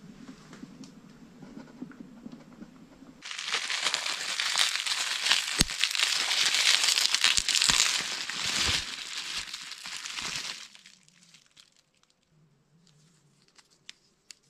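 Bubble wrap crinkling and crackling as it is handled and pulled off a small part. It starts abruptly about three seconds in, goes for about seven seconds, then stops.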